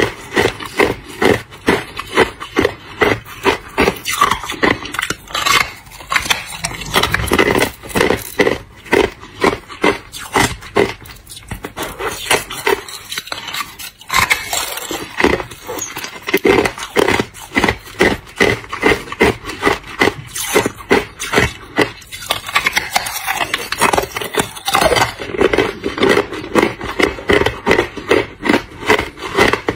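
Hard ice being bitten and chewed: loud crunching of teeth breaking ice, about two to three crunches a second, thinning out for a few seconds about halfway through.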